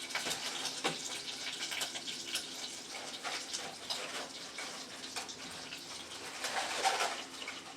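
Butter and olive oil sizzling and crackling in a saucepan as broken spaghetti pieces and pine nuts toast, with a few sharper clicks and a louder swell near the end.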